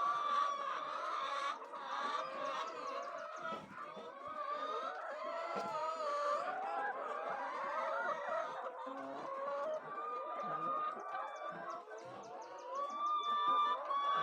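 A flock of chickens clucking and calling over one another without a break.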